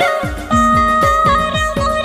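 Music with a fast beat of about four drum hits a second, each dropping in pitch, under a repeating melody.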